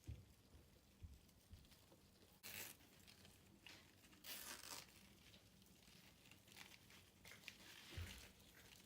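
Faint handling of packaging: two short rustles, about two and a half and four and a half seconds in, among light taps and clicks.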